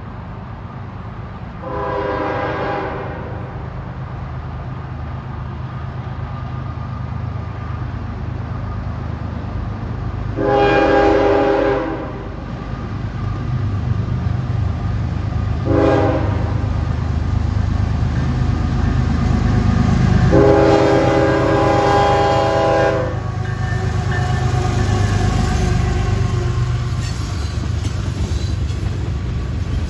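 Train horn blowing the long, long, short, long grade-crossing signal, a chord of several tones, over the low rumble of an approaching train that grows louder.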